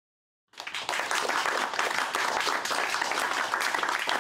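Small audience applauding: dense hand clapping that starts abruptly about half a second in and keeps up steadily.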